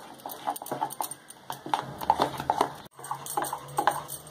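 Metal spoon beating thick gram-flour batter in a glass bowl: quick, irregular clicks and taps of the spoon against the glass as the batter is worked smooth and free of lumps. The sound drops out for an instant about three seconds in.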